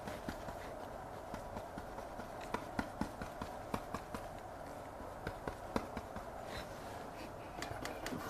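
Oil-paint brush tapping and dabbing on a stretched canvas, an irregular run of soft taps with a few sharper ones, over a steady low hiss.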